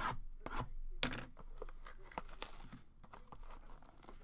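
Trading-card packaging being handled and opened: irregular rustling, crinkling and tearing with small clicks, the sharpest about a second in.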